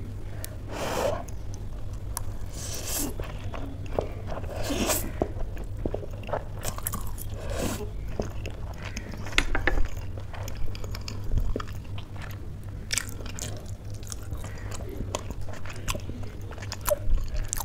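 Close-miked eating of spicy instant noodles: several wet slurps in the first half, then chewing with short moist mouth clicks and smacks.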